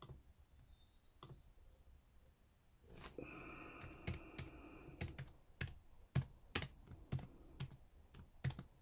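Keystrokes on a computer keyboard: about a dozen separate taps at an unhurried, uneven pace, after a short hiss about three seconds in.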